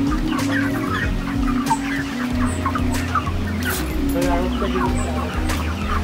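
A flock of young broiler chickens peeping and clucking, many short calls overlapping continuously.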